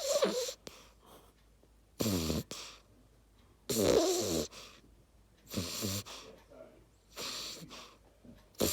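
Beagle puppy snoring in her sleep: about five snores, one every one and a half to two seconds. Each snore is a short noisy breath with a wavering pitched tone in it.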